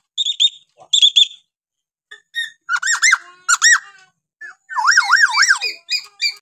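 Hill myna (Bornean 'beo Kalimantan') calling in a varied string. First come a few short, clipped double notes, then a run of loud whistles that each rise and fall. Near the end it gives a quick wavering whistle that swoops up and down three times.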